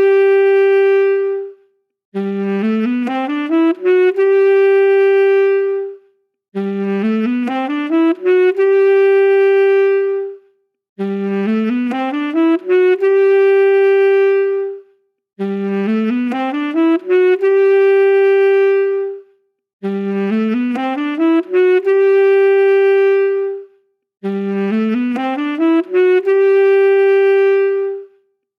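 Solo saxophone playing a quick rising run of notes that ends on a long held note, then breaking off; the same phrase repeats about every four and a half seconds, six times over, with short silences between.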